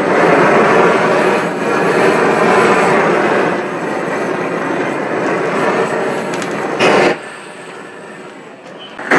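Propane weed burner torch burning with a loud, steady rushing noise as it heats the forge's refractory lining. About seven seconds in, after a click, the torch drops sharply to a much quieter burn.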